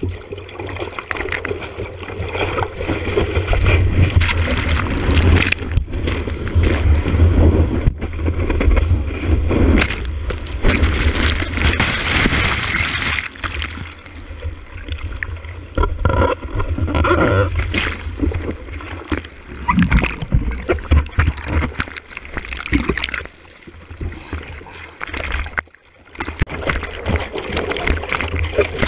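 Seawater splashing and rushing over a surfboard-mounted action camera as a surfer paddles out through broken surf, with a steady low rumble under it. About halfway through, the camera is swamped by whitewater and the rush of foam peaks.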